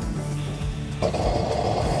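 Pressurized kerosene lantern's preheater lighting about a second in, then running as a loud, steady rushing hiss.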